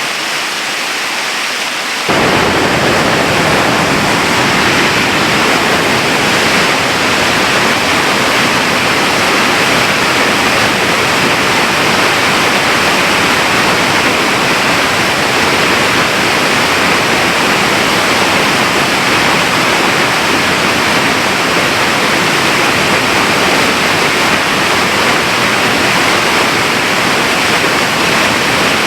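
Waterfall in full flow: a loud, steady rushing of falling water that cuts in abruptly about two seconds in.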